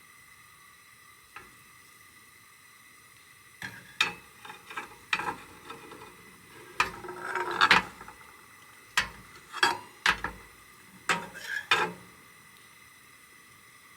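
Irregular clatter of camp cooking gear being handled: a string of short knocks, clinks and scrapes with a rustling stretch in the middle, starting about four seconds in and stopping about two seconds before the end.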